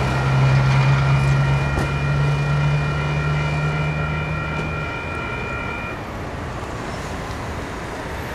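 Level crossing alarm ringing with steady high tones over the low rumble of a departing diesel locomotive. The locomotive's rumble drops away about five seconds in, and the crossing alarm stops about a second later as the crossing clears.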